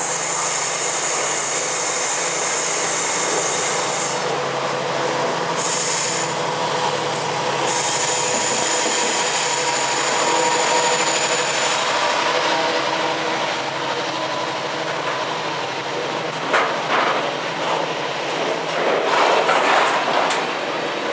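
Freightliner Class 70 diesel locomotive running under power as it hauls a container train past, with a high hiss in the first few seconds. The loaded container wagons then roll by, their wheels clattering over the rails near the end.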